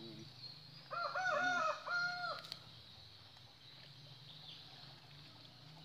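A rooster crows once, about a second in: a call of several rising-and-falling notes lasting about a second and a half. A steady high buzz and a low hum run underneath.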